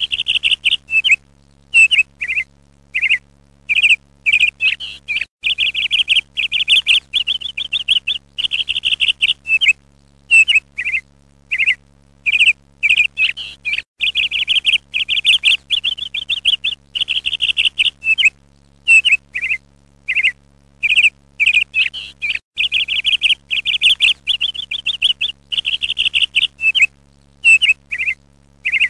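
A songbird singing in rapid high trills and chirps, in short bursts with brief gaps, over a faint steady low hum.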